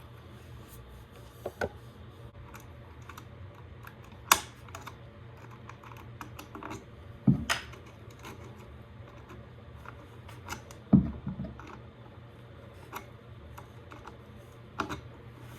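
Irregular clicks and taps of electrician's hand tools and copper wire being handled while a ground pigtail splice is made from Romex cable, with a few sharper clicks and two duller knocks standing out.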